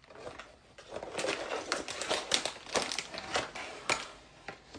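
Plastic packaging crinkling and rustling as it is handled and pulled open. It is a dense run of quick crackles that starts about a second in and dies away shortly before the end.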